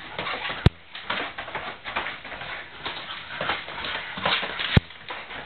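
Mastiff puppies' claws scrabbling and pattering on a hard kitchen floor as they run and play. Two sharp clicks stand out, one under a second in and one near the end.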